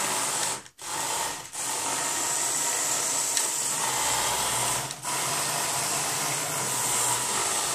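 Lego Power Functions electric motors running, driving the rubber tracks of a remote-controlled Lego Technic crawler crane. The sound cuts out briefly three times: just under a second in, about a second and a half in, and about five seconds in.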